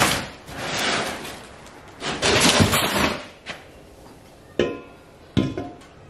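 Cardboard box and foam packing rustling and scraping as an aluminium bar-and-plate intercooler is pulled out. Then come two knocks with a brief metallic ring as the intercooler is set down on a concrete floor.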